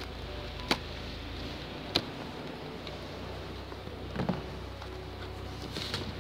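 Sharp clicks and knocks of a solar panel and its folding metal stand being handled: two single clicks, then a short clatter about four seconds in, over a steady low rumble. A brief scuff of clothing against the microphone near the end.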